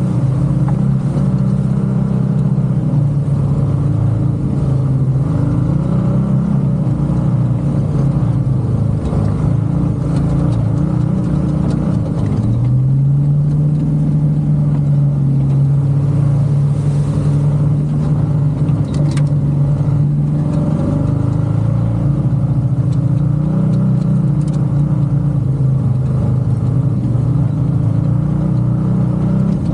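Motor vehicle engine running continuously under changing throttle, its pitch stepping up and down, with a marked rise about halfway through.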